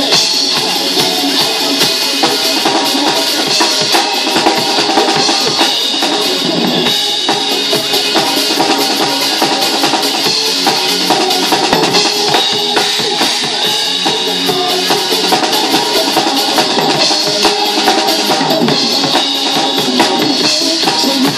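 A drum kit played live to a recorded backing song: bass drum, snare and cymbals in a steady groove over the song's melody and chords.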